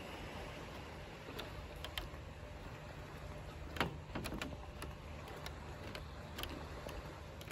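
Footsteps on wooden boardwalk planks, a few irregular knocks and creaks, the loudest about halfway through, over a steady hiss of wind.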